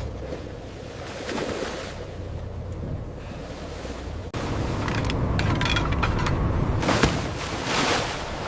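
Wind and sea wash on the deck of a crab boat, with the boat's engine running steadily low underneath. The sound breaks off abruptly about four seconds in and comes back louder, and there is a sharp knock near the end.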